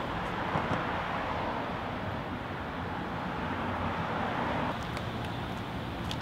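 Steady city street traffic noise, an even rush with no distinct events.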